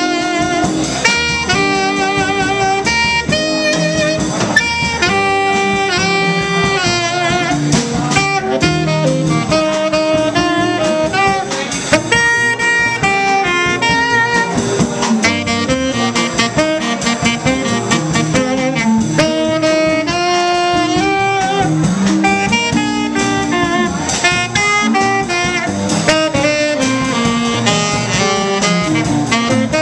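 Tenor saxophone playing a live jazz improvisation: quick runs of notes broken by held notes with vibrato.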